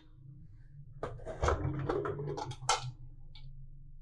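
Stovetop pressure cooker lid being twisted open and lifted off: a run of metal scrapes and clicks over about two seconds, ending in a sharper clank.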